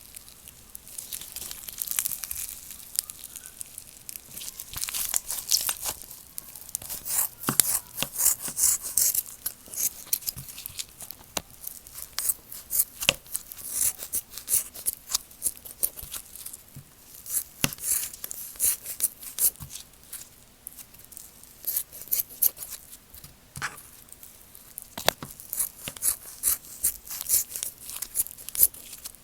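Slime being squeezed and stretched by hand, giving a dense run of irregular crackling and popping clicks.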